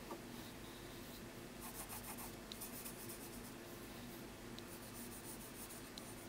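Graphite pencil sketching on paper: faint scratching strokes that come and go.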